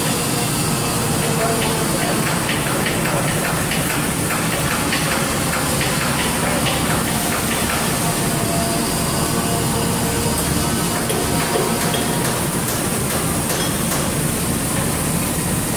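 Large rubber-tipped airlock rotor being pushed round by hand, with scraping and clicking as it turns, over steady machine-shop noise.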